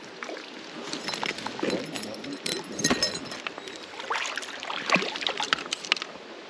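Creek water splashing and sloshing as a landing net is dipped and swished in the water to release a trout, with irregular short splashes and drips from about a second in until near the end.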